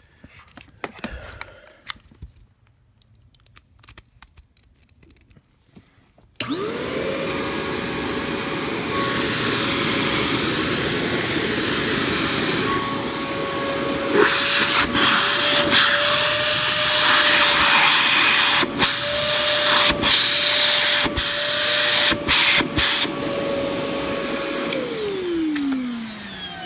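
Hoover Portapower CH30000 vacuum cleaner switched on after a few seconds of quiet handling, its motor running with a steady whine. It gets louder about halfway through, with brief dips and clicks, then switches off and winds down in a falling whine. It is running again on a newly fitted replacement plug, after the old plug had melted.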